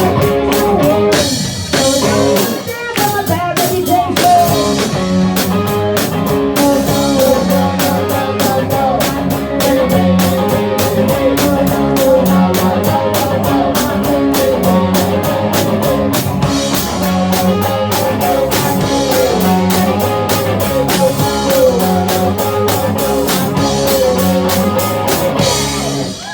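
Live rock band playing with a drum kit and electric guitar; the music stops right at the end.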